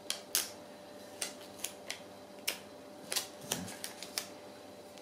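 Light, sharp taps and clicks, about a dozen at uneven intervals, as a sticky dust-absorber sticker is dabbed onto a smartphone's glass screen and pulled off again to pick up dust.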